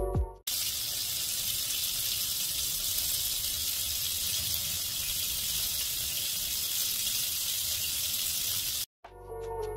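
Butter sizzling as it melts in a hot grill pan: a steady hiss that starts about half a second in and cuts off near the end.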